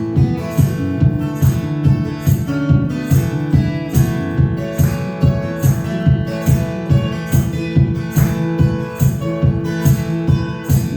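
Guitar strummed in a steady, driving rhythm, about two accented strokes a second, as an instrumental passage of a live song with no singing.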